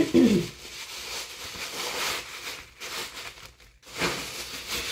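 Thin plastic grocery bags rustling and crinkling as they are pushed by hand into a mesh bag holder, with a brief pause about three and a half seconds in.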